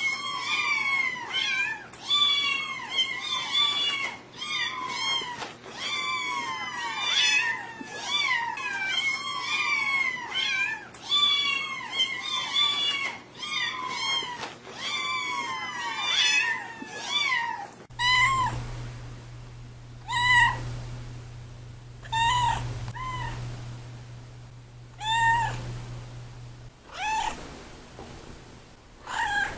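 Cats meowing, many calls overlapping one another in quick succession. About eighteen seconds in the sound changes to sparser meows, one at a time every second or two, over a low steady hum that stops near the end.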